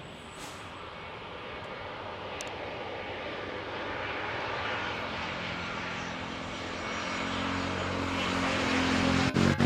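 Jet airliner on approach to land, its engine noise growing steadily louder as it nears and loudest near the end.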